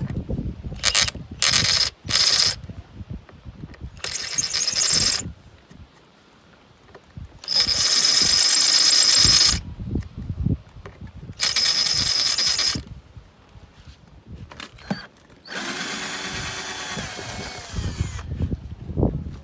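Cordless drill running in repeated bursts of one to three seconds, a twist bit boring holes through a stainless steel shield plate, with short pauses between bursts. The last, longer run near the end is lower and steadier.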